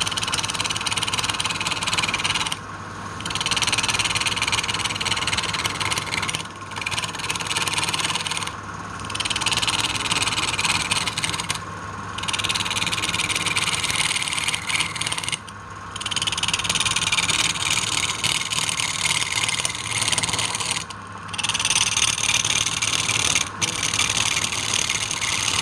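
A woodworking machine running with a steady motor hum under a loud, high rushing noise of cutting, which breaks off for a moment about seven times and then resumes.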